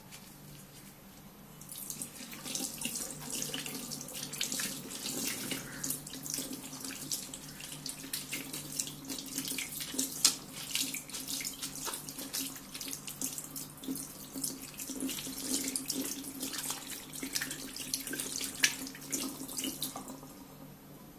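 Bathroom sink tap running, with water splashing over fingers and a wet tissue rubbed under the stream. The flow starts about two seconds in and is turned off just before the end.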